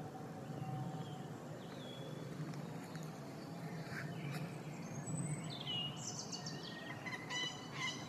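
Small birds calling and chirping, short high whistles and chirps that come more often in the second half, with a busy burst of calls near the end, over a steady low background rumble.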